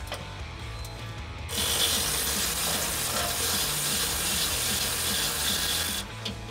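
Cordless electric ratchet with a 14 mm socket running in one steady stretch of about four and a half seconds, starting about a second and a half in and cutting off sharply, as it backs the nuts off the front crash bar's studs.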